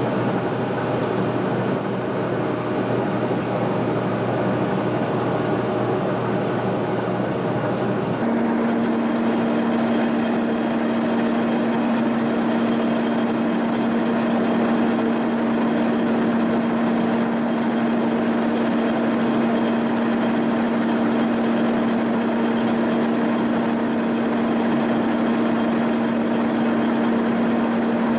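Mill spindle turning a boring bar that cuts a worn pin bore in a steel backhoe boom piece. About eight seconds in, a strong steady hum starts and holds: the boring bar chattering in the cut, the long-stickout tool and the part ringing like a tuning fork.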